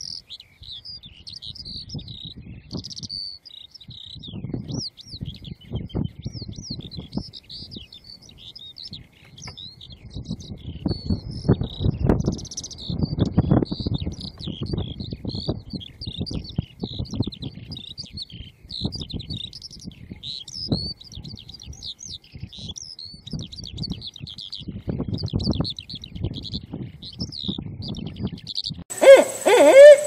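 Eurasian skylark singing a long, continuous high-pitched warbling song, over an uneven low rumble. About a second before the end, a much louder barred owl call cuts in.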